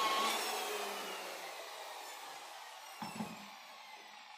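Electric car polisher switched off, its motor whine falling in pitch and fading as the pad spins down. A short, soft thump about three seconds in.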